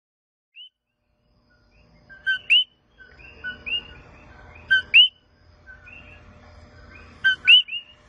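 Common coquí frogs (Eleutherodactylus coqui) calling their two-note "co-quí": a short lower note followed by a higher, rising whistle. Three loud calls come about two and a half seconds apart, with fainter coquís calling in the background.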